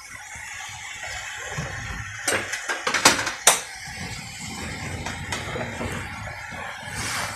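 A metal spoon stirring and scraping sautéing red spinach in a metal kadai, with several sharp knocks of the spoon against the pan between about two and three and a half seconds in, over a steady sizzling hiss.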